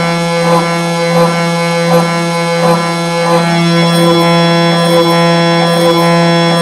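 Background music: a steady drone with layered sustained tones and a soft regular beat about every 0.7 s that fades out a little past halfway.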